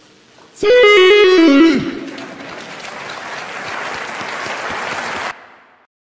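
Cristiano Ronaldo's "Siuuu" shout, processed with autotune so that it steps down in pitch in distinct notes for about a second. Audience applause follows, growing slightly louder until it cuts off about five seconds in.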